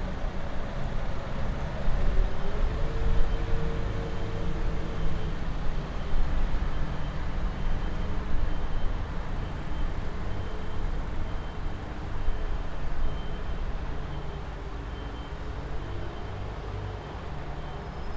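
Low, uneven rumble of road traffic near a railway line, with a faint high tone repeating about once a second.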